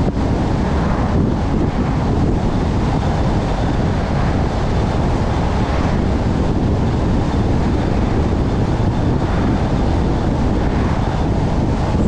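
Steady wind rush on the microphone over road and tyre noise from a car cruising along a highway.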